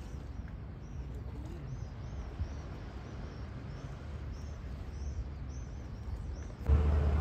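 Small birds chirping over and over, short high chirps, above a low steady rumble. Near the end the sound cuts abruptly to a much louder low hum with a steady tone.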